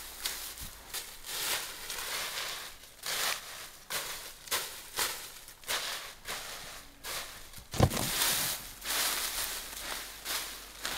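Dry leaf litter and forest debris rustling and crunching in a string of short scrapes as it is raked and piled up. A single low thud a little before eight seconds in is the loudest sound.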